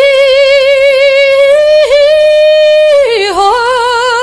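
A woman singing solo and unaccompanied, holding the word "me" on a long high note with a wavering vibrato. The note dips briefly about two seconds in, then slides down to a slightly lower note that she holds.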